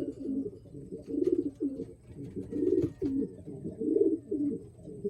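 Racing pigeons cooing, several low coos following one another with hardly a pause, the loudest about a second, three seconds and four seconds in.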